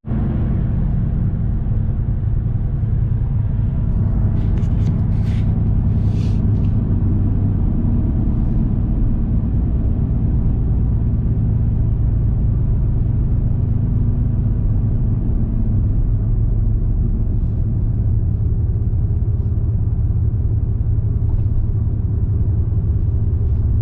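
Steady low rumble of a car's engine and road noise heard from inside the moving car.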